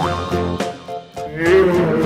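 Background music made of short, steady notes, with a wavering tone that comes in about one and a half seconds in.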